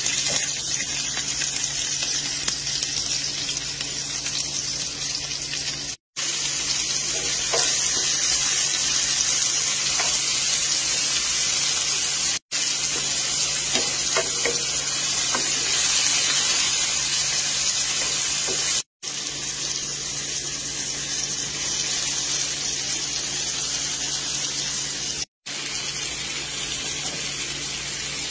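Onions, tomatoes and shredded chicken sizzling in hot oil in a frying pan, with a wooden spoon now and then scraping and stirring against the pan. The steady sizzle cuts out to silence for a moment four times, about every six seconds.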